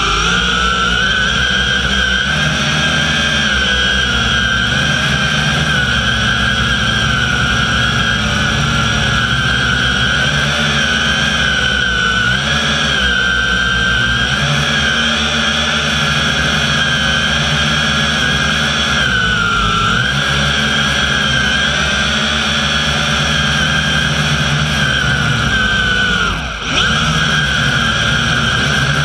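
Zoopa Q650 quadcopter's electric motors and propellers running with a steady whine, heard close up from the GoPro mounted on the drone. The pitch wavers as the motors speed up and slow down in flight, with a brief dip in pitch and level about 26 seconds in.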